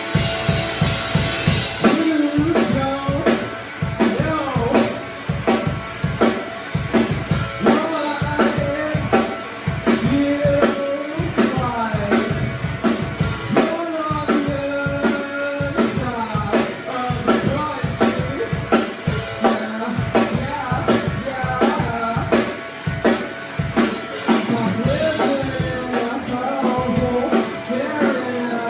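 Live rock band playing: drum kit keeping a steady beat under guitar and a sung melody line.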